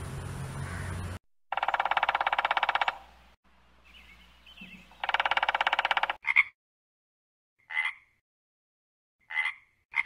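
Animal calls: two rapid, evenly pulsed trills of about a second and a half each, followed by four short, separate calls spaced out over the next few seconds.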